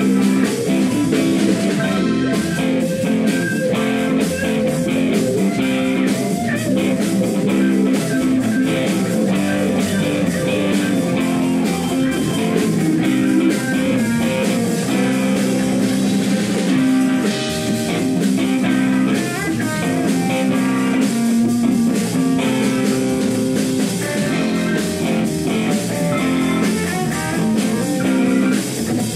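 Live blues band playing with electric guitar, Nord Stage keyboard and drums.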